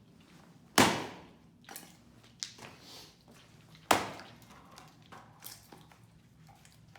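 An axe splitting firewood: two heavy chopping strikes into wood about three seconds apart, with a few lighter knocks between and after.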